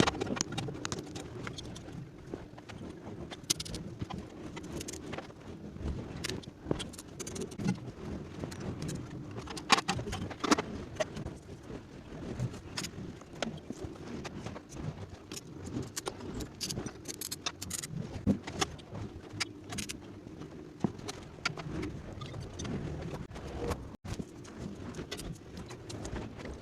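Irregular metal clinks and taps from steel pieces being handled and knocked, over a steady low hum.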